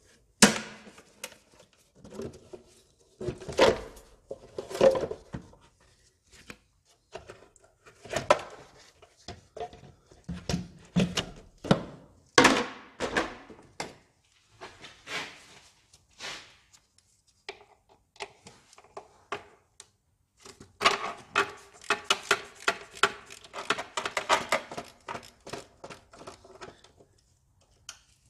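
Hand tools and metal car parts knocking, clanking and rattling as an engine bay is stripped, in irregular single knocks with a busier run of rapid clatter about three-quarters of the way through.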